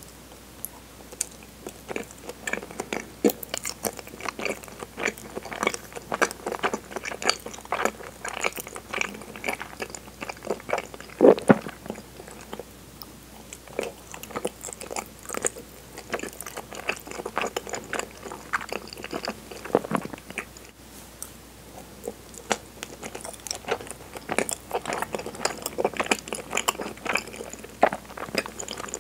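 Close-miked chewing of soft, chewy cinnamon-flavoured chigiri mochi coated in kinako: a steady run of wet, sticky mouth clicks and squelches, with one louder smack about eleven seconds in.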